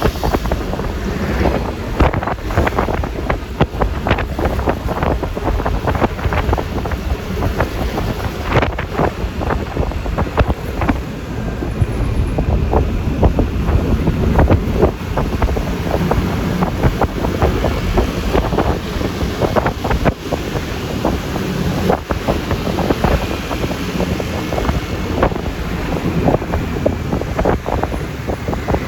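Wind buffeting the microphone on a moving Yamaha Lexi LX 155 motor scooter, full of short crackling gusts over a constant low rumble of engine and road noise.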